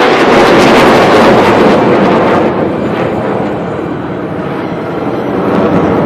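Jet roar from KAI T-50B Golden Eagle jets flying an aerobatic display overhead. It is loudest over the first two seconds, fades to its lowest about four seconds in, then swells again near the end.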